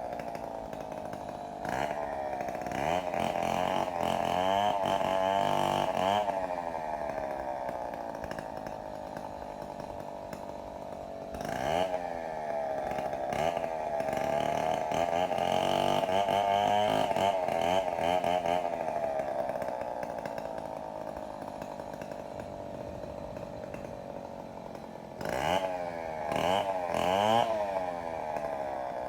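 Gasoline chainsaw cutting firewood, its engine revving up under load and falling back toward idle several times, with three longer spells at high revs.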